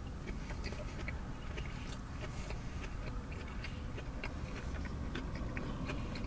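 A person biting and chewing a mouthful of sub sandwich close to the microphone, with many small irregular wet mouth clicks. A steady low rumble of the car cabin runs underneath.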